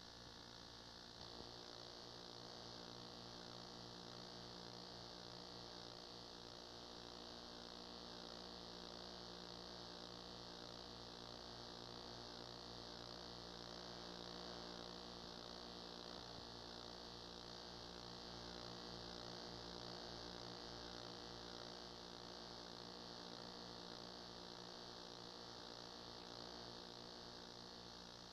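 Steady electrical mains hum with a layer of hiss, unchanging throughout: the noise floor of an old videotape transfer with no live sound on it.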